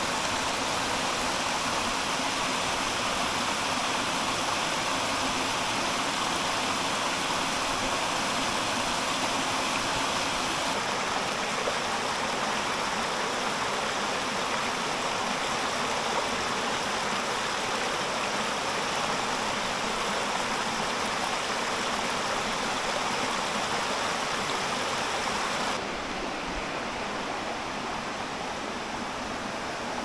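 Steady rush of water from a shallow rocky stream and small cascades, turning a little softer near the end.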